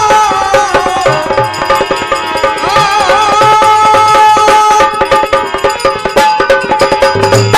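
Instrumental interlude of Rajasthani folk bhajan music: harmonium chords held over a steady hand-drum beat. In the first second or so, a held sung note slides down and fades under the instruments.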